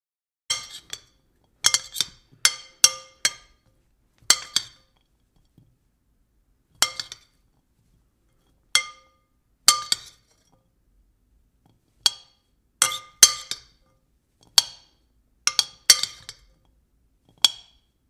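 A spoon tapping and clinking on a bowl, about twenty irregular strikes, some single and some in quick pairs or triplets, each ringing briefly with a clear bell-like tone.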